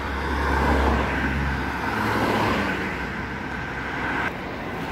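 Road traffic: cars passing close by on a busy road, the noise swelling and fading as they go past.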